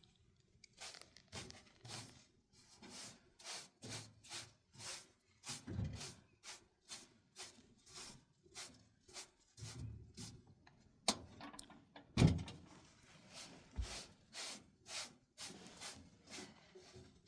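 Rhythmic scraping strokes, about two a second, like a hand tool working earth or mud, with a few heavier thuds in between.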